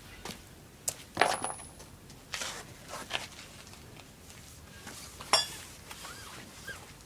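Metal tools and parts clinking and knocking during a tyre change: a handful of separate clinks, the loudest a little over five seconds in, ringing briefly.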